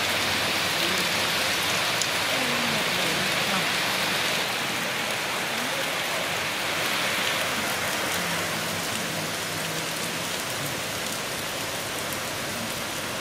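Rain falling steadily, an even hiss that eases slightly in the second half.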